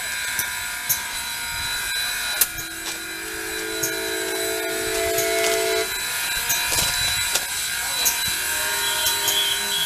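A locomotive's chime sounds a low chord of several held notes for about three seconds, then a shorter, fainter chord near the end. Under it runs a steady hiss with scattered clicks.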